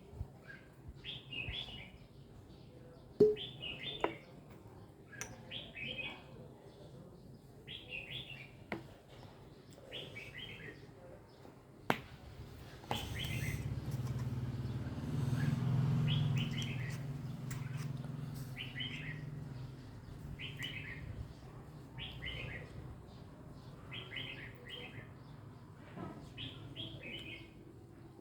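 A bird repeating the same short chirping call about every second and a half. A low hum swells and fades in the middle, and a few sharp knocks come early on and about halfway through.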